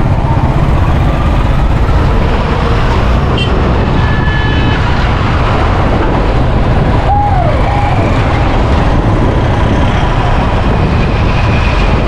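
Motorcycle riding along a busy road, heard from a camera on the bike: steady engine and wind rush with passing traffic, and a short high tone about four seconds in.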